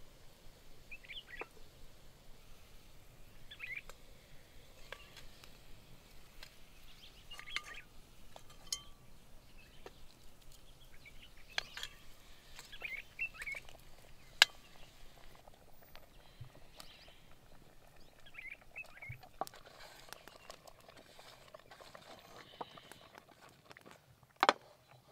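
Faint outdoor ambience with scattered short bird chirps and a few sharp clicks and knocks, the loudest one just before the end.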